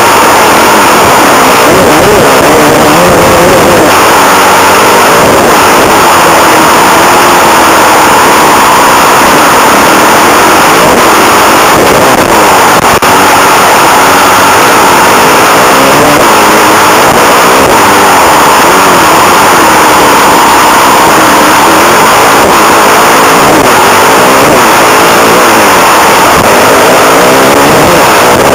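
Suzuki motocross bike engine revving up and down repeatedly as it is ridden hard around a dirt track, very loud on the helmet-mounted microphone, with rushing wind noise underneath.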